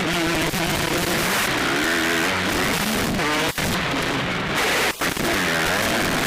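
Motocross bike engines revving up and down, heard through a harsh, distorted recording, with two brief dropouts, one past the middle and one about five seconds in.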